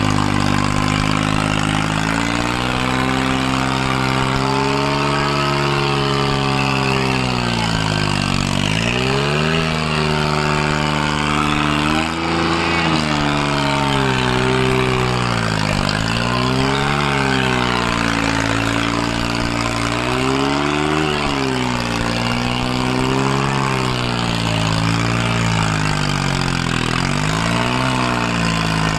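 New Holland 3630 tractor's three-cylinder diesel engine labouring under a heavy pulling load, its revs sagging and recovering again and again as it drags through soft ploughed soil.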